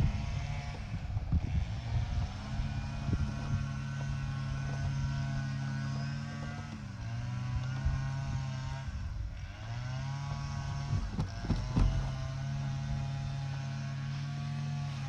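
RockMow S108 mower running with its cutting disc fitted, giving a steady whining hum with an overtone. Its pitch sags and recovers twice, and there are a few knocks about eleven to twelve seconds in. This is the noise the owner complains of with the general disc and the PreciEdge disc.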